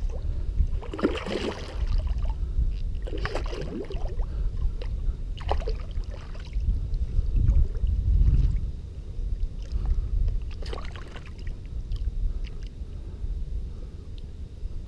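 Water splashing and sloshing in shallow water as a hooked carp thrashes at the surface and a hand reaches in to grab it, with short splashes every couple of seconds over a constant low rumble.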